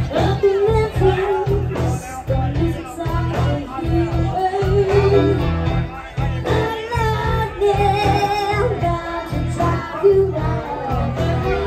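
Live country-rock band playing in a bar: electric guitars, fiddle, bass and drums over a steady beat.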